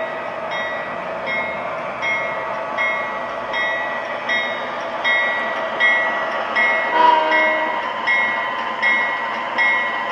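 MTH model BNSF diesel locomotive's onboard sound effects: a locomotive bell dinging steadily, a bit more than once a second, over a diesel engine hum, with a short horn blast about seven seconds in.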